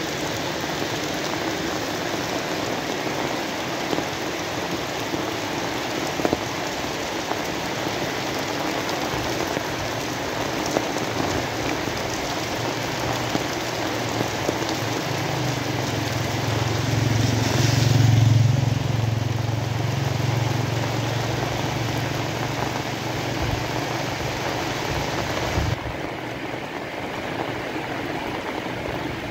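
Steady rain falling. Over the middle stretch a low engine hum from a passing vehicle builds, is loudest about 18 seconds in, and fades away. The high hiss of the rain drops suddenly near the end.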